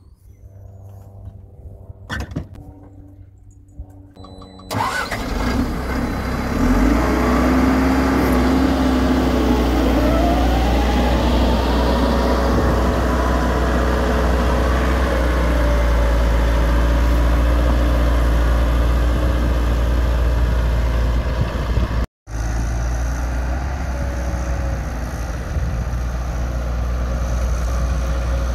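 Diesel engine of a Hyundai Robex 1300W wheeled excavator starting about five seconds in, after a single click, then running steadily with a rising whine for a few seconds after it catches.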